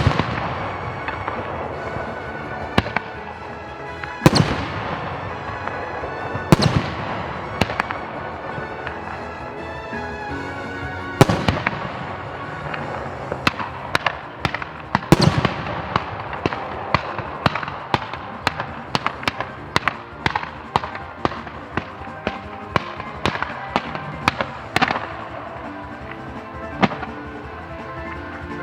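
Fireworks shells bursting over background music: a few big booming bursts about two seconds apart, then a rapid string of sharper bangs and crackles through the middle that thins out near the end.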